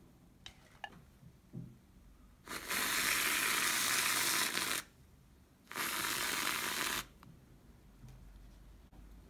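Aerosol whipped cream can spraying cream onto a drink: two long hisses, the second shorter, with a few light taps in the first two seconds.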